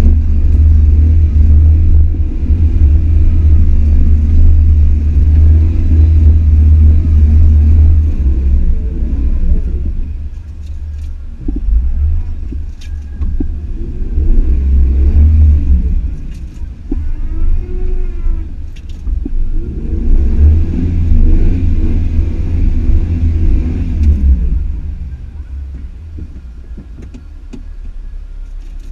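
Off-road vehicle's engine driving along a trail, a heavy low rumble at first, then revving up and down several times as the driver works the throttle, easing off to a lower level over the last few seconds.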